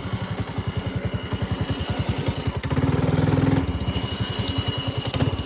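Motovox minibike's small single-cylinder engine running while the bike is ridden, a fast even putter that picks up revs for about a second halfway through, then eases back. A faint thin high whine sits over the engine in the second half.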